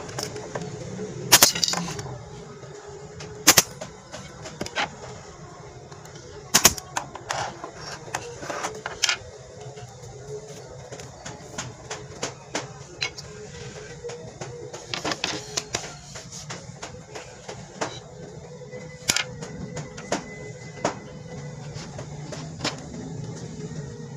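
Pneumatic F50 brad nailer firing brads into the corners of a wooden frame: sharp shots a few seconds apart, with lighter knocks and clicks of wood and the tool being handled between them, over a steady low hum.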